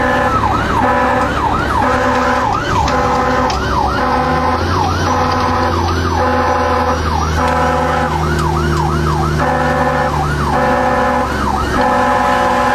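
Fire engine's siren, heard from inside the cab, sounding in a fast, repeated rising-and-falling yelp. A deeper steady tone runs underneath from about four seconds in until near the end.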